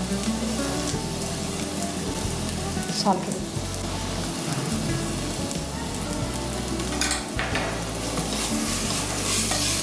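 Tomatoes, turmeric and salt sizzling steadily as they fry in oil with onions in a steel pressure cooker, stirred with a spatula, with a brief scrape or clink now and then.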